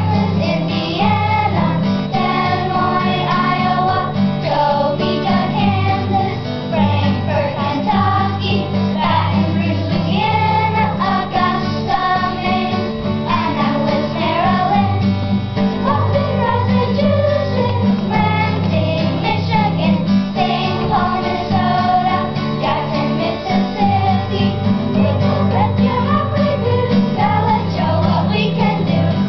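Children's choir singing a song about the US states and their capitals, accompanied by an acoustic guitar.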